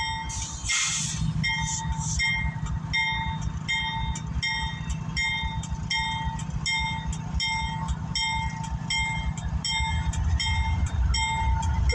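Railroad grade-crossing bell dinging at an even pace, about one and a half rings a second, over the low running of a CSX diesel freight locomotive as the long-held train starts to move.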